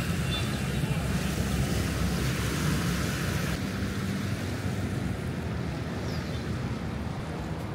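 Small waves washing onto a sandy beach, with wind rumbling on the microphone.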